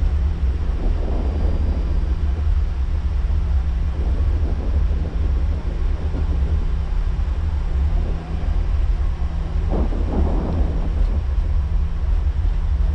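Airbus A340 flight-deck noise while taxiing after landing: a steady low rumble with a constant hum underneath.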